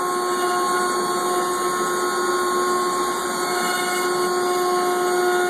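CNC router spindle running steadily with a whine of several held tones over a hiss, cutting a levelling pass across the machine's own table.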